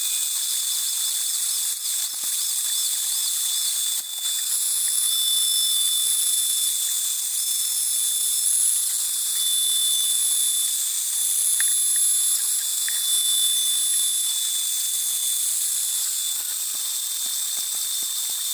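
Stepper motors driving the converted mini mill's axes, giving a steady high hiss with high-pitched whining tones that start and stop every second or two as the axes move.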